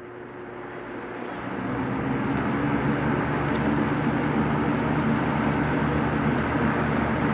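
Vintage Superelectric model 2072 box fan switched on at high speed: the blades spin up over the first couple of seconds, then it runs steadily with a rush of air over a low motor hum.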